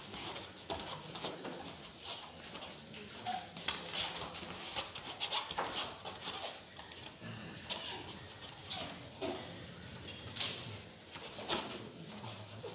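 Irregular scuffs and slaps from two grapplers' bare feet shuffling on foam mats and their hands gripping and slapping at each other in a standing clinch, with a few short vocal sounds.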